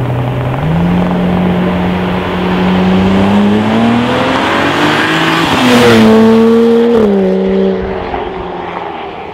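BMW 335i (E90) turbocharged straight-six with a custom exhaust, accelerating hard on approach with its pitch climbing steadily for several seconds. It is loudest about six seconds in as it passes by, then drops in pitch and fades away.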